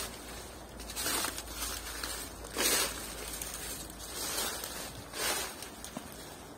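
Footsteps crunching on the forest floor, about five steps spaced a second or so apart.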